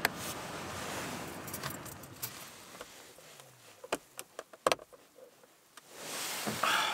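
Nylon sleeping bag and clothing rustling as a man shifts about in a car, then two sharp clicks of the car's interior dome-light switch as the light is turned off, and more rustling near the end.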